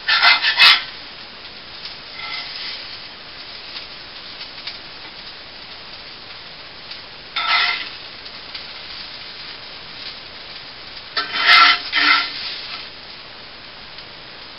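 Potatoes sizzling steadily in a cast iron skillet, with a spatula scraping against the pan in three short bouts: right at the start, about seven seconds in, and again around eleven to twelve seconds in.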